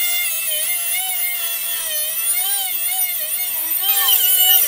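Small angle grinder with a thin cutting wheel cutting through 1/8-inch 440C stainless steel: a high motor whine that wavers up and down in pitch as the wheel bites into the steel, over a steady hiss of grinding.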